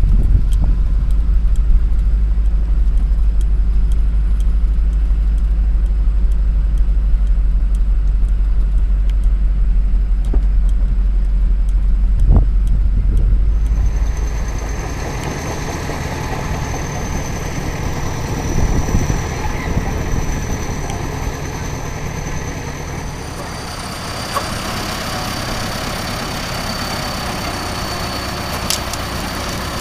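Caterpillar D7 bulldozer's turbocharged diesel engine running. A heavy low rumble fills the first half; about halfway through, a steady high turbo whistle comes in over the engine, and it drops to a lower pitch near the end.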